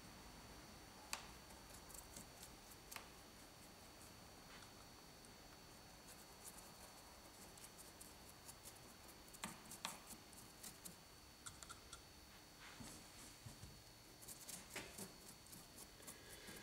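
Faint scratchy taps and rubs of a wet paintbrush worked against a rough cast rock face, scattered irregularly through near silence.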